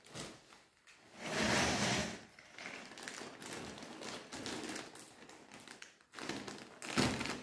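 Plastic wrapping of a diaper pack crinkling and rustling as a toddler pulls at it, with scattered taps and knocks; the loudest stretch comes between one and two seconds in.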